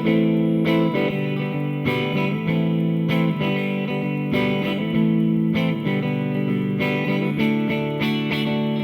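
Electric guitar played through a Hughes & Kettner Attax Metroverb 50-watt transistor combo amp: chords struck about once a second, each left to ring.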